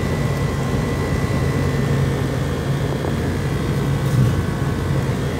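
Emerson Quiet Kool 19,000 BTU window air conditioner running, heard at its rear grille: its rotary compressor gives a steady low hum over the even rush of the condenser fan's air.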